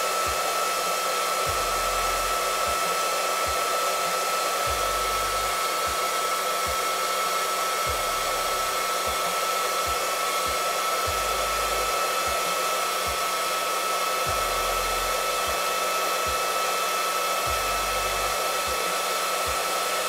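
Handheld hair dryer running steadily with a constant whine, its nozzle blowing into a plastic bottle that holds a lock of hair to spin it into a curl.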